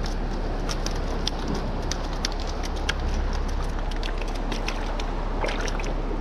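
Steady rush of wind on the microphone and surf against the rocks, with irregular small sharp clicks and taps scattered throughout.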